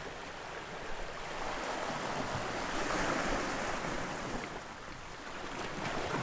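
Sea water washing against a rocky shore, a steady rush that swells about halfway through and then eases.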